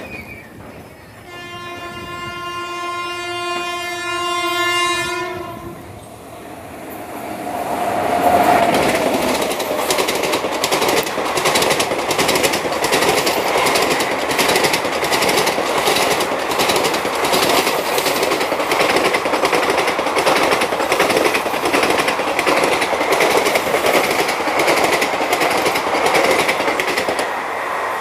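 WAP-7 electric locomotive sounding one long horn blast of about four seconds as it approaches. The locomotive and its passenger coaches then rush past at high speed, with the wheels clattering over the rail joints in a fast rhythm that fades near the end as the last coach goes by.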